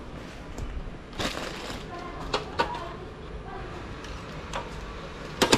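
Scattered light clicks and knocks, then two quick, sharp clicks near the end as miniature circuit breakers on a household distribution board are flipped on to restore the power.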